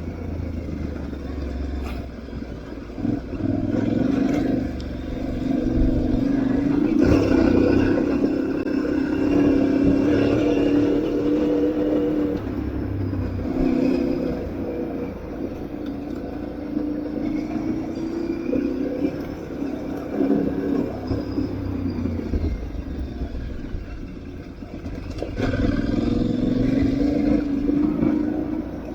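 Aprilia Tuareg 660's parallel-twin engine running under changing throttle, its pitch rising and falling as the revs go up and down, with a dip in revs a few seconds before the end.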